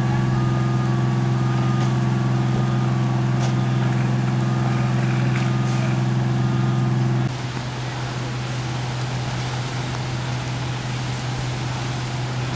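A heavy engine running steadily with a deep hum. It cuts off sharply about seven seconds in, leaving a steady rushing noise.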